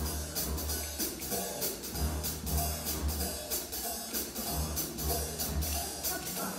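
Musical theatre pit band playing an instrumental dance break in a jazzy number: a steady, evenly ticking high percussion beat over a line of low bass notes, with no singing.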